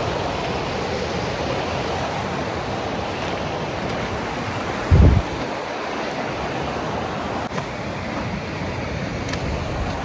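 Steady rush of a mountain stream's white water, with one brief low thump about halfway through.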